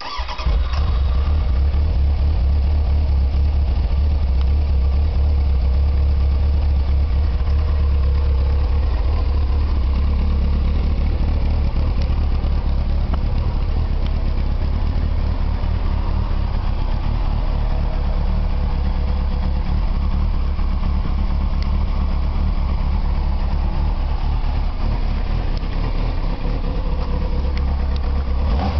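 A 2001 Kawasaki ZX-9R E1's inline-four engine starts right at the beginning and then idles steadily, running smoothly with no bad noises.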